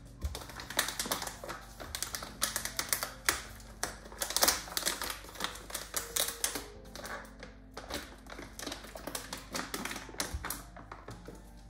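Foil-lined coffee bag crinkling and crackling as it is handled and opened, a dense, irregular run of crisp crackles that peaks about halfway through, with soft background music underneath.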